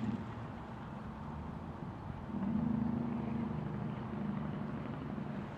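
A vehicle engine running with a steady low hum that grows louder a little over two seconds in, then eases off.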